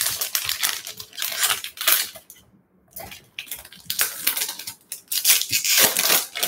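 Foil-lined baseball card pack wrapper being torn open and crinkled by hand: quick, crisp crackling, with a brief pause about two and a half seconds in.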